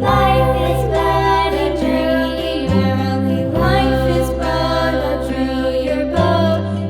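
Background music with singing over sustained bass notes that change every few seconds.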